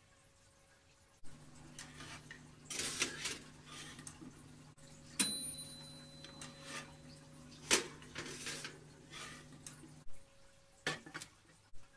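A metal baking tray is handled and slid onto a countertop oven's wire rack, scraping and rattling on the metal. One sharp, ringing clink comes about five seconds in and another knock comes under three seconds later, over a low steady hum. A few light metallic taps come near the end.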